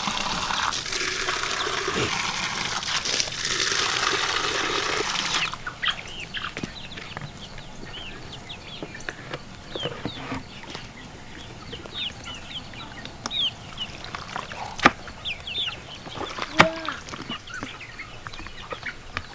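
Water running from a garden hose into plastic chicken waterers, shut off suddenly about five seconds in. Then young chickens cheeping in many short, high chirps, with a few sharp clicks from the waterers being handled.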